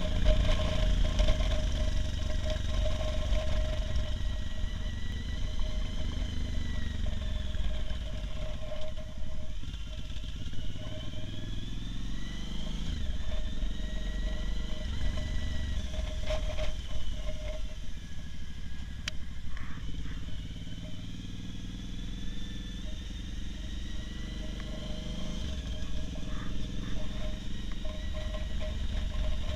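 Motorcycle engine running under way, heard from on the bike, its pitch rising and falling as the rider accelerates and eases off through the bends, over a steady low wind rumble.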